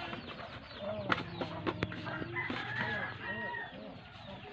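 Chickens clucking repeatedly, short pitched calls throughout, with three sharp clicks between about one and two seconds in.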